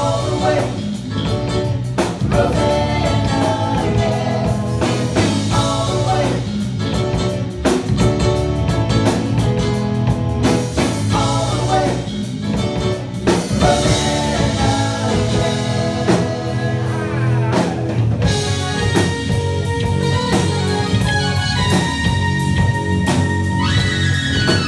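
Small live rock band playing a soft-rock song: a woman singing over electric bass, drum kit and keyboard. In the last few seconds long held notes step up and down in pitch.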